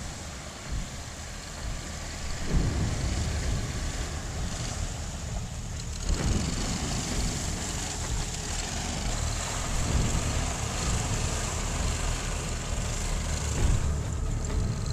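Argo amphibious ATV's engine running hard as the machine churns through muddy water and climbs out onto a dirt bank, with splashing and a rushing wash over the engine. The sound changes abruptly about six seconds in and again near the end.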